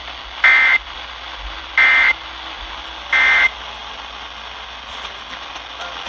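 Emergency Alert System end-of-message signal: three short bursts of warbling SAME data tones, about 1.3 s apart, played over a portable radio's speaker from an FM broadcast, with steady radio hiss behind them. It marks the end of the severe thunderstorm warning.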